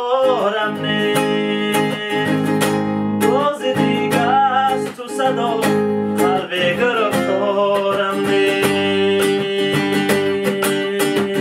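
Nylon-string classical guitar strummed in a steady rhythm, with a man's voice singing drawn-out phrases over it several times.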